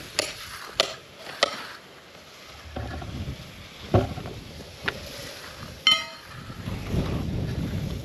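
Wind buffeting the microphone, the rumble rising near the end, with several sharp knocks and one ringing metallic clang of tools being handled.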